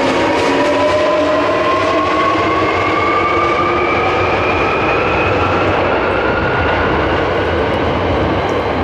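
Electric Sakaisuji Line train accelerating away from the platform: its traction motors whine in several tones that rise slowly in pitch, over a steady rumble of wheels on rail.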